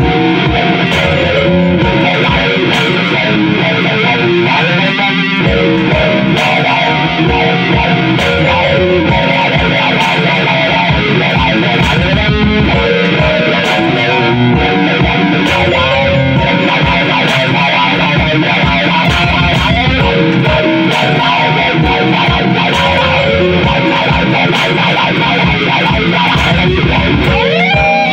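Electric guitar playing melodic lines over a programmed hip-hop-style beat with a steady pulse.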